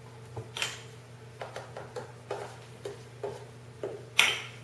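Kitchen utensils and a measuring cup knocking and scraping against a mixing bowl in a quick run of short clatters, the loudest near the end.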